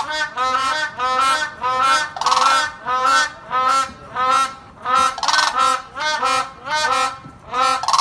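Cranes honking in a rapid series of short pitched calls, about three a second, with a louder, harsher call every two or three seconds.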